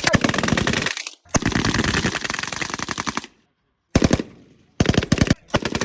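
M240B machine gun fire in rapid bursts: a long burst that stops about a second in, then several more bursts of varying length separated by short pauses.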